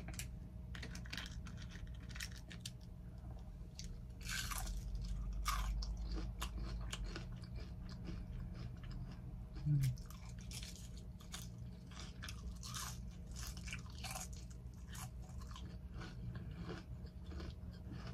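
Close-miked crunching and chewing of crisp battered onion rings, with many sharp crunches. The crunching is densest and loudest about four to six seconds in.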